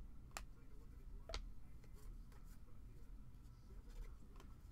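Trading cards being flicked through by hand: a few faint, crisp clicks as card edges snap past one another, the two sharpest in the first second and a half.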